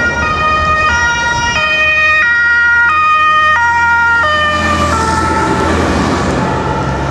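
Emergency vehicle's two-tone siren alternating between a high and a low note about every two-thirds of a second. It grows louder, peaks in the middle, then drops slightly in pitch and fades as the vehicle passes, over a steady low rumble of traffic.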